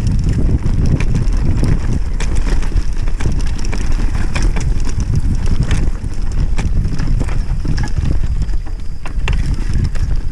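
Wind buffeting a handlebar-mounted action camera as a mountain bike rolls down a grassy trail, a heavy low rumble, with scattered clicks and rattles from the bike over the bumps.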